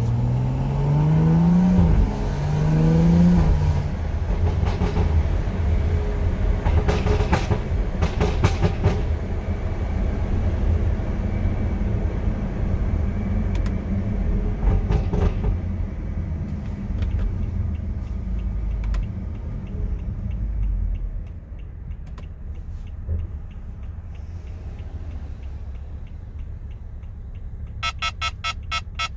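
BMW 335i's turbocharged N55 inline-six with a full-bolt-on exhaust, heard from inside the cabin, revving up through two gears and then droning steadily. A cluster of sharp crackles and pops from the exhaust sounds a few seconds later and again briefly in the middle. The engine then quietens as the car slows, and a quick run of electronic beeps comes near the end.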